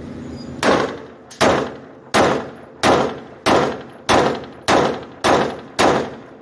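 Glock 19 Gen 4 9mm pistol test-fired nine times at a steady pace, about one shot every two-thirds of a second, each shot with a short ringing tail.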